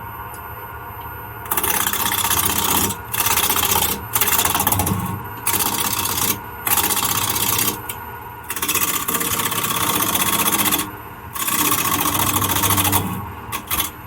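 Wood lathe running with a steady hum while a turning tool cuts into the spinning wooden lid blank in a series of loud passes, each a second or two long, with short breaks between them.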